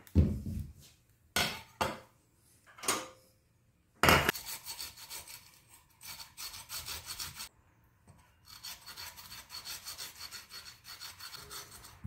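Kumquat peel being grated on a flat metal grater: rapid, evenly repeated rasping strokes in two runs with a short pause between them. A few knocks and a louder thump come first, about four seconds in.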